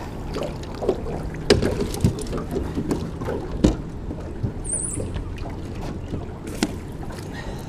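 Scattered knocks and clicks of gear and a deck hatch being handled on a small boat, over a low steady hum.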